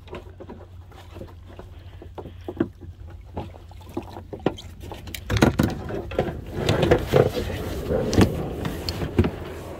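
Plastic kayak hull knocking and scuffing as someone climbs in and settles into the cockpit: scattered light knocks at first, then a louder run of rubbing and bumping about halfway through.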